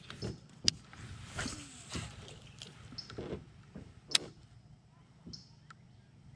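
Handling noises: soft rustling and knocks with two sharp clicks, one about a second in and one about four seconds in, and faint short high chirps in the second half.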